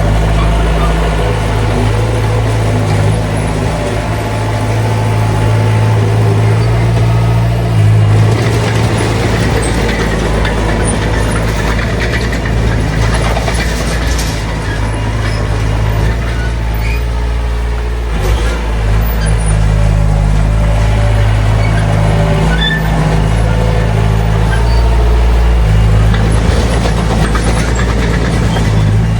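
Heavy earthmoving machinery's diesel engine running steadily under load, a low drone with scattered clanks and hiss over it.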